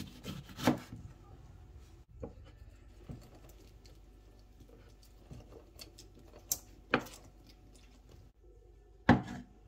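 A kitchen knife cutting through a lemon onto a wooden chopping board, then a lemon half being twisted and squeezed on a glass citrus juicer, with soft scratching and several sharp knocks; the loudest knock comes near the end.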